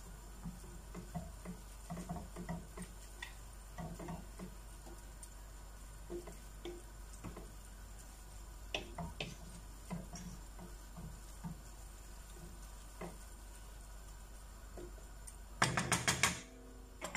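Wooden spatula stirring and tossing rice vermicelli noodles in sauce in a cooking pot: faint, scattered soft knocks and scrapes of wood against the pot, with a short louder clatter near the end.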